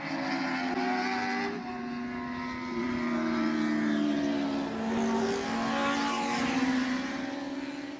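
Several race car engines running at speed, their pitches rising and falling against one another as cars pass; the sound begins to fade near the end.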